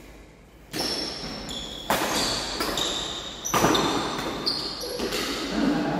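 Badminton rally: a string of sharp racket hits on the shuttlecock, a second or more apart, starting just under a second in, with short high squeaks between the hits.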